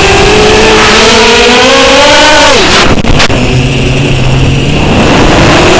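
Small multirotor drone's electric motors and propellers whining loudly, the pitch rising and falling with throttle. About three seconds in the whine dives sharply, with a couple of short clicks, sinks to a low hum, then climbs again near the end.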